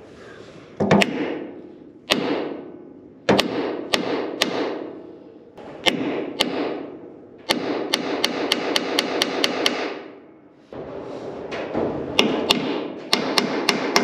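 Hammer striking a center punch against the baler's sheet-steel side panel to mark holes for drilling, sharp metallic strikes with ringing after each. It starts with single blows a second or so apart, then comes in quick runs of lighter taps about four a second.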